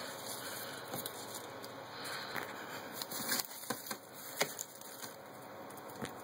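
Shredded paper strips rustling and crinkling as a cat paws and bites at them, with irregular sharp crackles, loudest a little after three seconds and again past four.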